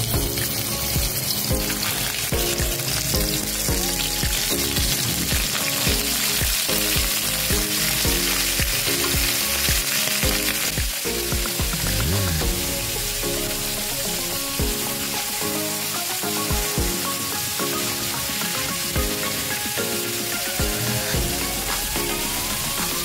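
Chicken pieces sizzling steadily as they fry in oil and soy-vinegar sauce in a cast-iron pan, turned now and then with a wooden spatula and tongs, under background music.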